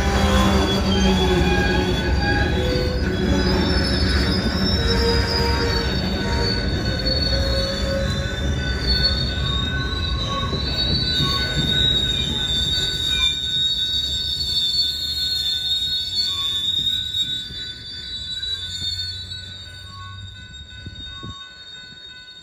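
Freight train of open hopper cars rolling past, steel wheels squealing on the rails in high wavering tones over a low rumble. The sound fades as the last car moves away, about seventeen seconds in.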